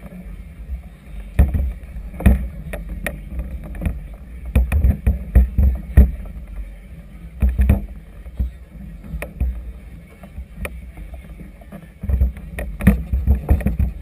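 Wind and choppy water buffeting a camera mounted on a vessel: a low rumble broken by irregular thumps and sharp knocks.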